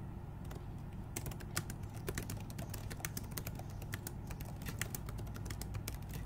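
Computer keyboard typing: a run of quick, irregular keystrokes, thickest from about a second in.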